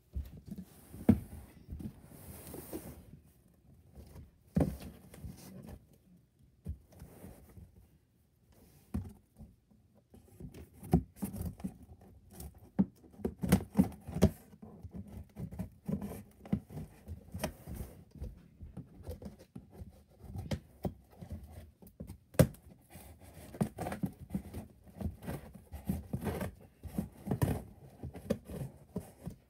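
Hands opening and handling a large cardboard shipping box: irregular knocks, scrapes and rustles on the cardboard, with a short pause about eight seconds in.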